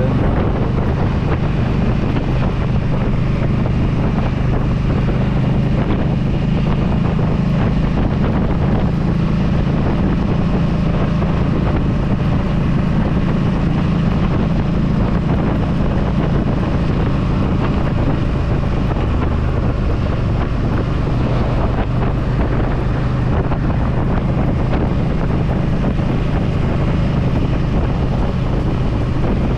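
Yamaha V Star 1300's V-twin engine running steadily while the motorcycle is under way, with wind buffeting the microphone.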